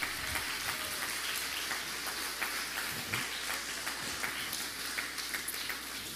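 Congregation applauding: many hands clapping at once in a steady, dense patter.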